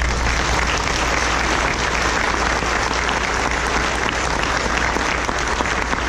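Congregation applauding: many people clapping at once, starting suddenly and holding steady.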